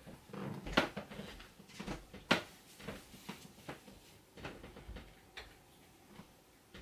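Irregular light knocks, clicks and clothing rustle from a person getting dressed and moving about on foot. There are two sharper knocks, about a second in and a little after two seconds.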